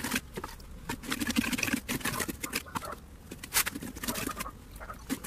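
Small steel trowel scraping and patting wet concrete smooth in a paving-stone mould, a quick irregular run of short scrapes and taps.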